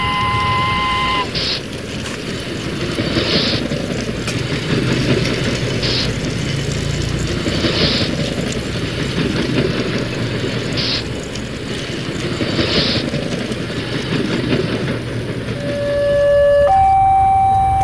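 A train running with a steady rumble and a short hiss every two seconds or so, just after a multi-tone whistle cuts off about a second in. Near the end a two-tone siren starts, alternating between a low and a high pitch about once a second.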